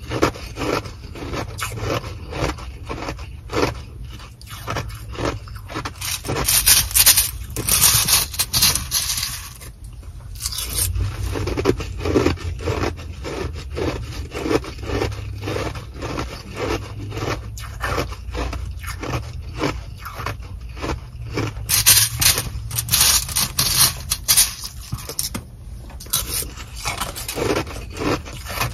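Sonic nugget ice crunched close to the microphone and scraped with a clear plastic spoon inside its plastic bag: a dense, rapid crackling, with two brighter, hissier stretches about seven and twenty-two seconds in.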